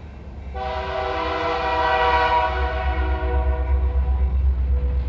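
Locomotive air horn sounding one long chord that starts about half a second in and fades away near the end, over the steady low drone of a lawn mower engine.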